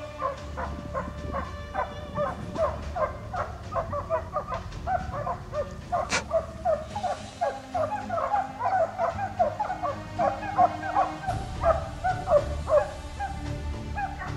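A pack of hunting hounds barking rapidly, several dogs overlapping, over a low rumble. There is one sharp click about six seconds in.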